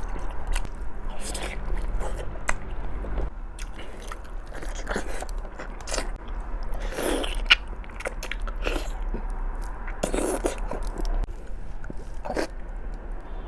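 Close-miked eating: a person biting and chewing food, with irregular crunches and wet mouth clicks, and louder bites about 7 and 10 seconds in. A steady low hum runs underneath.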